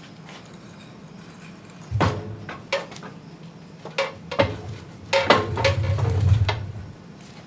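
Heavy cast-iron parts clanking and knocking as a tractor engine is pushed into the transmission housing to mate the bell housing: a series of clunks, with a longer rumbling, scraping stretch about five to six and a half seconds in.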